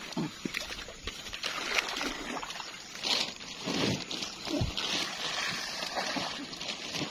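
Murky pond water sloshing and splashing irregularly as carp are released by hand into it.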